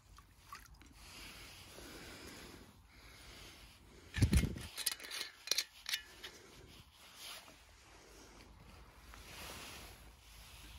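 A single thump about four seconds in, followed by a quick run of light clinks and knocks: a whisky bottle and a mug being handled while an Irish coffee is made.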